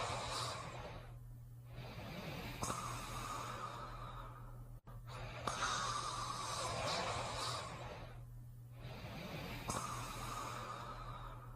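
Snoring breaths of a sleeper: about three long, noisy breaths of a couple of seconds each, with short pauses between them, over a steady low hum.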